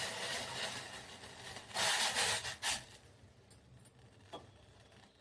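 Water being poured into a cooking pot, the pour fading out and ending in three short, louder bursts about two seconds in, followed by quiet with one faint tick.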